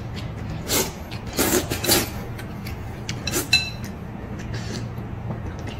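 Eating at a porcelain bowl of noodle soup: slurping from the bowl in a few short bursts, with chopsticks clinking against the porcelain, including one brief ringing clink about three and a half seconds in.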